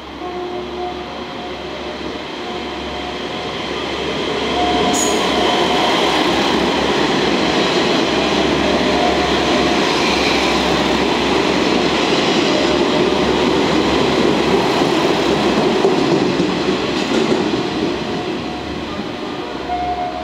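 A five-car set of JNR KiHa 40-series diesel railcars passing by: diesel engines running and wheels rolling over the rails. The sound builds as the cars draw level, stays loud for about ten seconds, then fades as the train moves away. There is a single sharp click about five seconds in.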